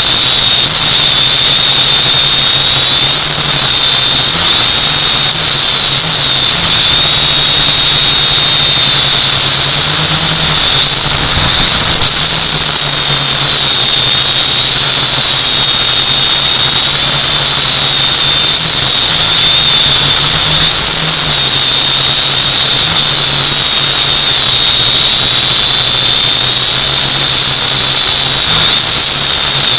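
Multirotor drone's electric motors and propellers whining steadily in flight, the high pitch lifting briefly every few seconds as the motor speeds change, over a low steady hum.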